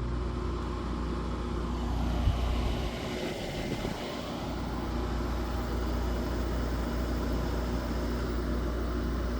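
2006 Amana 6000 BTU window air conditioner starting up: a click about two seconds in, then the unit's fan running with a steady whoosh and low hum.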